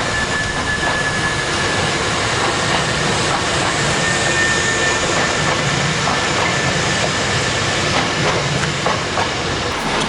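Hankyu train running past on the track: a steady loud rumble and hiss, with a thin high whine through the first half that fades out about halfway through, and a few light clicks from the wheels later on.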